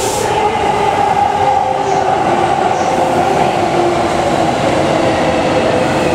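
Tokyo Metro 05 series electric commuter train pulling out of the platform: a steady, loud running noise with faint humming tones.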